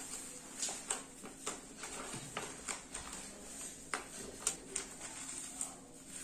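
Self-adhesive PVC wallpaper sheet crinkling and crackling in irregular clicks as its backing paper is peeled away and the sheet is pressed onto the wall by hand.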